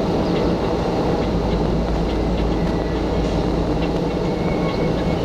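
Steady low rumble of a car driving on a concrete road, heard from inside the cabin, with faint scattered ticks over it.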